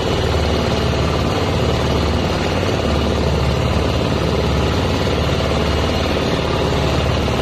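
Small wooden boat's engine running steadily while under way, a fast even throb, with a steady hiss over it.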